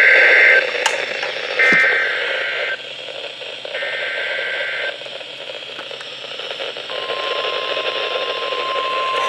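NOAA Weather Radio alert signalling over radio static: three warbling SAME data bursts, each about a second long and a second apart, encoding the alert header. About seven seconds in, the steady single-pitch 1050 Hz warning alarm tone begins; it announces a warning, here a severe thunderstorm warning.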